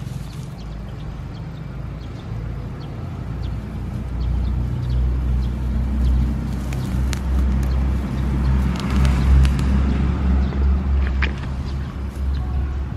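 Low rumble of a passing motor vehicle, building from about four seconds in and easing near the end, with rustling and a few sharp snaps as small wood sorrel plants are pulled out of the grass by hand.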